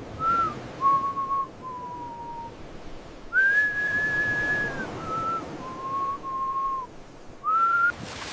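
Whistling: a slow run of about eight clear held notes, rising and falling in pitch, with one long high note in the middle.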